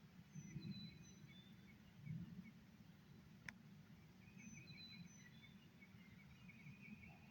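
Faint songbirds calling in the distance: short high chirps and brief trills, repeated in two phrases. Underneath is a low, steady rumble, and there is a single sharp click about halfway through.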